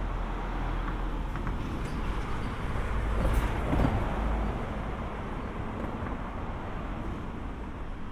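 Low, steady rumble of passing motor vehicles, swelling to a peak about three to four seconds in and then easing off.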